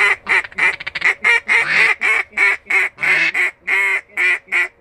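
Duck call blown in a long string of loud, nasal quacks: a run of quick short notes about a second in, then steadier quacks about three a second. The calling stops just before the end.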